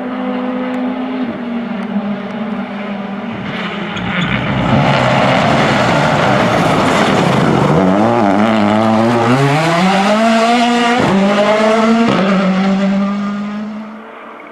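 Ford Puma Rally1 car's turbocharged four-cylinder engine under hard throttle, approaching and passing close. The engine note dips in the middle, then climbs again with two quick upshifts a second apart, before fading away near the end.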